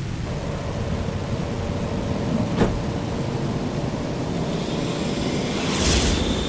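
Steady low rumble of a science-fiction spaceship engine sound effect. A short click comes about two and a half seconds in, and the rumble swells with a hiss near the end.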